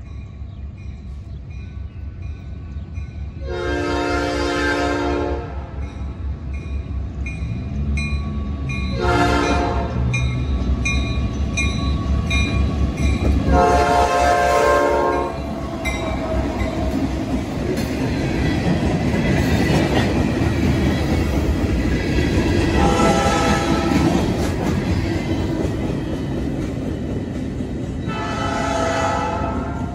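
Norfolk Southern diesel freight locomotives sounding their air horns for a grade crossing: a long blast, a short one and another long one as the train approaches. The locomotives and freight cars then run past with wheels clattering over the rails, and two more horn blasts come later.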